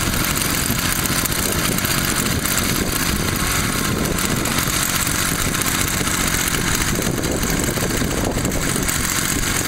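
Small two-stroke brushcutter engine on a homemade outboard motor running steadily out of the water, its propeller spinning freely in the air.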